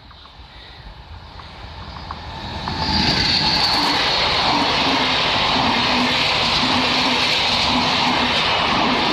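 NSB express train hauled by an El 18 electric locomotive approaching and passing close by at speed. It grows louder over about three seconds, then holds a steady rush of wheels on rail and air as the coaches go past.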